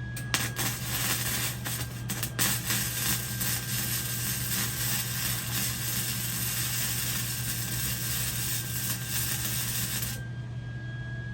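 Electric arc welding: the arc crackles steadily through one bead about ten seconds long, starting with a few sharp clicks and cutting off suddenly.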